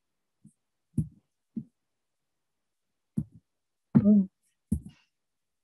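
Mostly dead silence on a noise-gated video-call line, broken by a few brief, faint low blips and one short voiced murmur from a woman about four seconds in.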